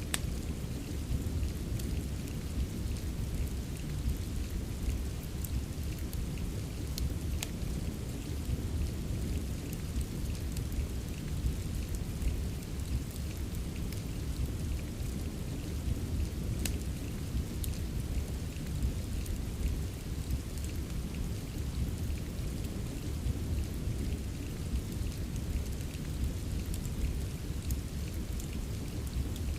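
Steady rain with a deep, continuous low rumble underneath, and scattered sharp crackles of a wood fire in a fireplace.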